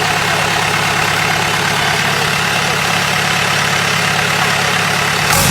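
Racing boat engine idling loudly with an even, steady beat; it picks up slightly just before the end.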